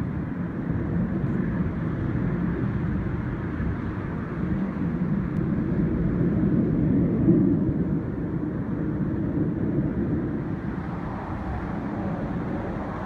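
Distant rumble of a formation of F-16 fighter jets flying a loop overhead, swelling to a peak about seven seconds in and then easing off.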